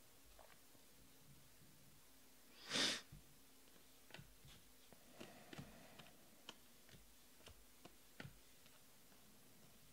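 Quiet handling of a stack of glossy Panini Prizm baseball cards: soft, scattered clicks and ticks as the cards are flicked through one by one. There is one short, louder breath about three seconds in.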